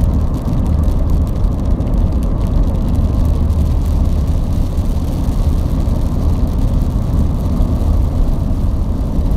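Steady low rumble of a vehicle on the move, engine and road noise.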